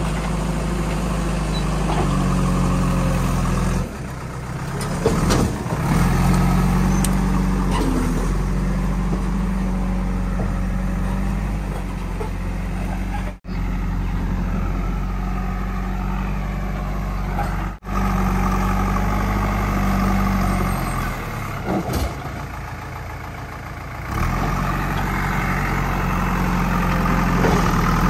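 JCB 3DX backhoe loader's Kirloskar diesel engine running steadily as the backhoe works, its note easing off twice for a few seconds. A few sharp knocks come around five seconds in.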